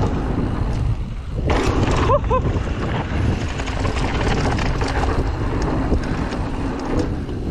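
Wind buffeting the camera microphone on a downhill mountain bike run, over the rumble and rattle of tyres rolling on dirt trail and wooden boardwalk planks.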